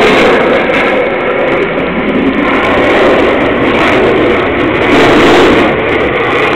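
Loud, steady noise of jet aircraft engines, with slight swells in level.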